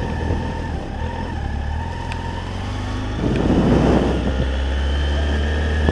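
Kawasaki ZX-6R 636 inline-four running at low revs as the motorcycle pulls away slowly. About three seconds in, the sound grows fuller and louder as the bike picks up speed.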